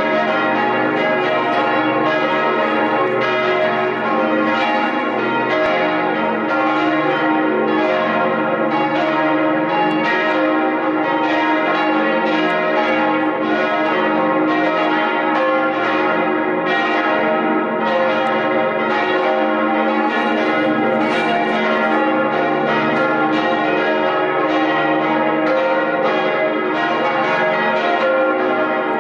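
Several church bells ringing together in a full peal, their strikes overlapping in a dense, continuous clangour at a steady level.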